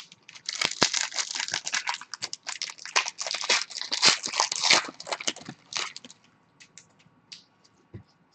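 Trading-card pack wrapper being torn open and crinkled: dense crackling for about five seconds, then a few scattered faint rustles near the end.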